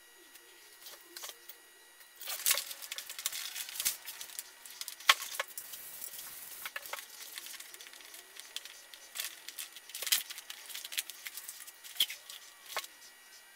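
Thin clear plastic film crinkling and rustling as it is handled and wrapped around a foam seat pad. The crackles are irregular, with a few sharper snaps, and start about two seconds in.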